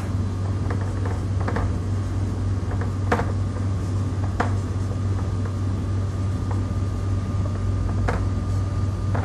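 Marker pen writing on a whiteboard: a few short, scattered squeaks and taps of the tip, over a steady low hum.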